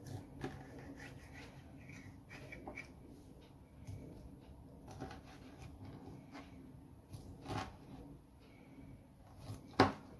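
Kitchen knife cutting pineapple rings into cubes on a plastic cutting board: scattered soft knocks of the blade against the board, the loudest one near the end.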